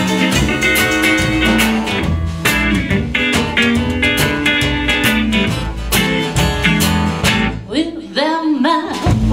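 Live band with electric guitar, acoustic guitar, upright bass and drum kit playing a country-blues song. Near the end the bass and drums drop out for about a second and a half, leaving a few bending notes, then the full band comes back in.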